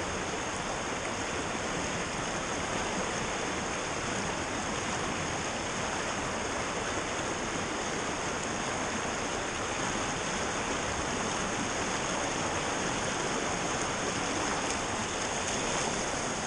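Creek water rushing steadily over rocks and through riffles.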